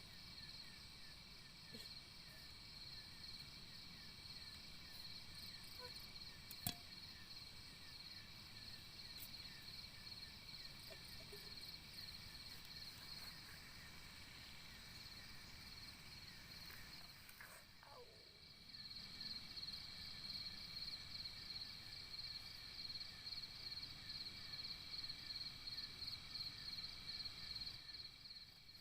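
Faint forest ambience: a steady chorus of insects chirping in fast pulses, with a low rumble underneath. A single sharp click comes about seven seconds in, and a short falling whistle a little past the middle, after which the insect chorus grows louder.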